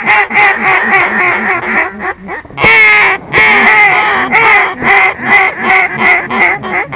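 Duck call blown close by in a rapid string of quacks, about four or five a second. The string breaks briefly, gives one longer, louder note around three seconds in, then carries on.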